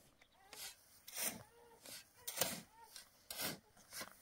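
Repeated short rasping strokes of something scraping or rubbing on a rough surface, a little under one a second and unevenly spaced.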